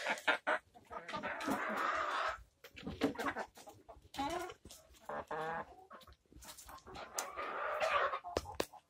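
A flock of domestic hens clucking and squawking, with one short pitched call about five seconds in, over many small clicks of birds pecking and scratching in straw.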